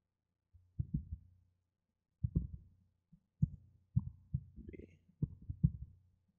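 Computer keyboard keystrokes heard as dull, irregular low thuds, with a faint low hum that comes and goes with them.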